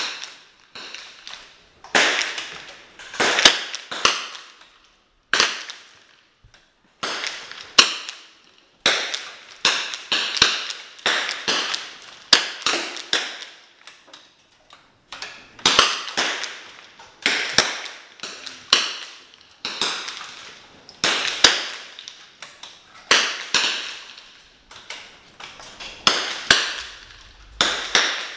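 Rapid, irregular .22 rimfire rifle shots from several benchrest shooters firing at once, sharp cracks that sometimes come in quick clusters, each with a short ringing tail under the covered firing line.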